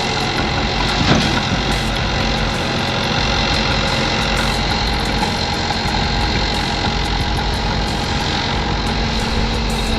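A heavy vehicle's engine running steadily at an even pitch.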